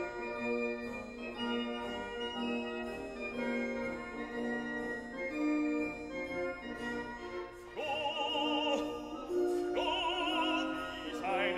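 Background music: sustained organ-like chords with a slow melody. About eight seconds in, a high melody with strong vibrato joins them, in an operatic style.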